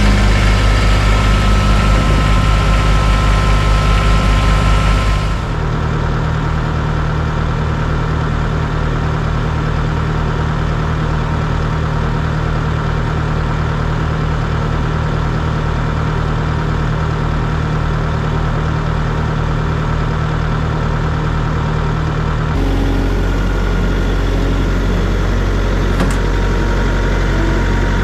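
Kubota compact tractor's diesel engine idling steadily. The engine note changes abruptly about five seconds in and again a few seconds before the end.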